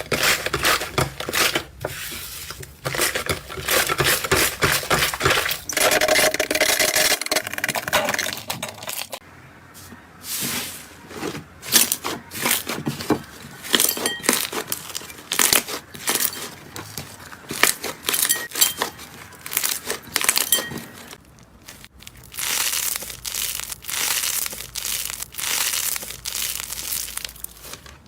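Slime being squished and pressed, giving a dense run of crisp crackling and popping.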